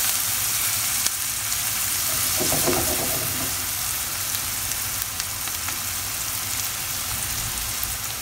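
Diced onion and green pepper sizzling steadily in oil and butter in a frying pan over high heat as they soften; a spatula stirs through them in the first few seconds.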